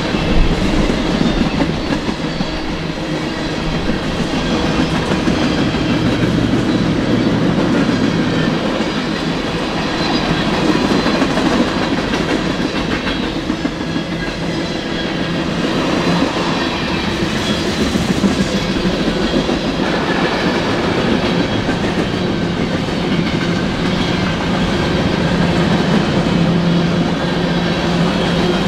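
Freight train of tank cars rolling past close by, its steel wheels running on the rails with a loud, steady noise.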